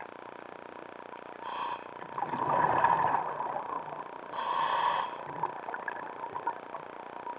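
Scuba diver breathing through a regulator. About a second and a half in comes a short hissing inhale, then a longer burst of exhaled bubbles, which is the loudest part, then a second hissing inhale. A steady faint hiss runs underneath.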